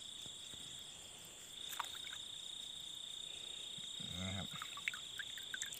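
Night chorus of frogs and insects in wet fields: a steady high-pitched trill, with a short low sound about four seconds in and a few faint clicks.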